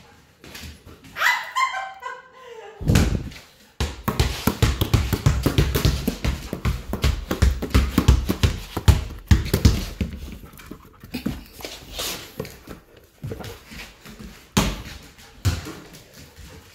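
A dog whines once about a second in, the call sliding down in pitch. It is followed by several seconds of rapid knocks and scuffling that thin out near the end.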